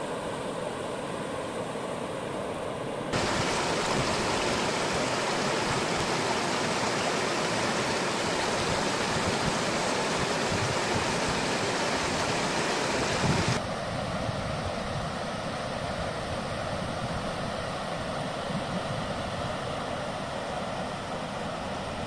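Shallow river rapids: water rushing and splashing over rocks in a steady rush. It turns suddenly louder and fuller about three seconds in, then drops back to a softer rush about two-thirds of the way through.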